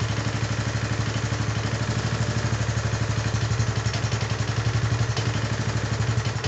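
Small single-cylinder four-stroke 6.5 hp engine of a FORZA tracked motor-tow idling with an even, rapid firing beat just after a cold start on fresh oil, running evenly like clockwork.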